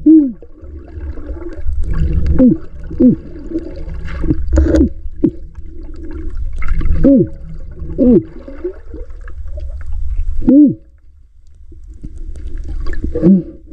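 Water gurgling close to the microphone: bubbly gulps that slide down in pitch every second or two, over a low rumble.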